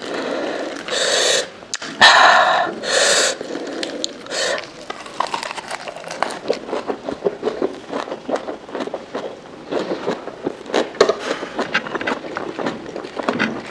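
Three loud breathy huffs through the mouth in the first few seconds, typical of reacting to chilli heat. After them comes close-miked chewing of a lettuce wrap, with quick crunchy and wet mouth clicks.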